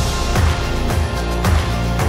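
Background music with a steady beat, a low drum hit about twice a second.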